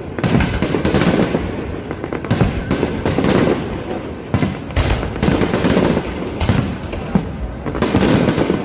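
Fireworks display: dense volleys of bangs and crackling, coming in clusters one after another with no pause.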